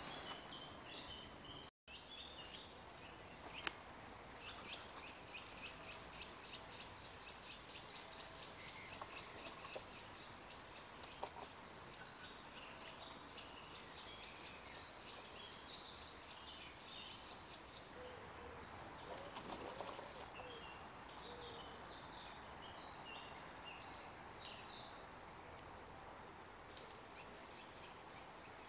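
Faint outdoor birdsong: small songbirds in the trees giving many short high chirps and a rapid trill. There is a brief rustle of noise about two-thirds of the way through.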